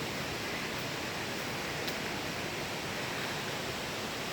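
Steady rush of water from a jungle stream and waterfall, an even hiss with no change in level.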